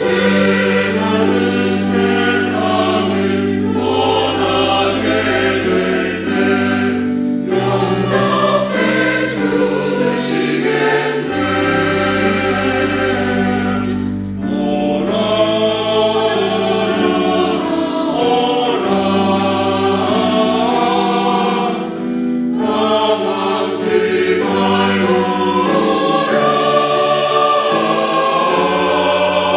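Church choir singing a slow hymn in long held phrases, with short breaks between phrases.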